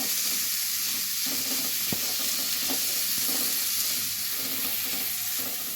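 Onion, tomato and spice masala sizzling steadily in hot oil in a pan as it is stirred, with a couple of light knocks from the spoon. The masala is being fried down on a low flame until the oil starts to separate.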